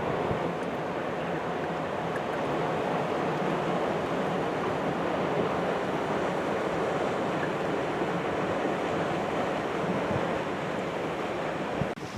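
Steady rush of wind and moving water, an even noise with no distinct events.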